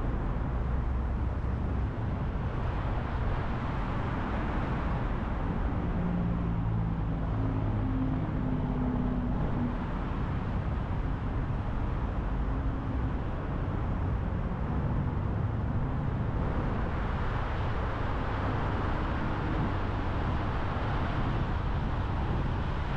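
A car driving at highway speed: steady tyre and road rumble with engine noise, and a faint low drone that shows above it for a few seconds in the middle.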